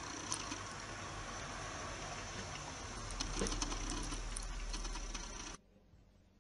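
Kitten purring steadily close to the microphone, with a few small licking clicks in the middle; the sound cuts off suddenly near the end.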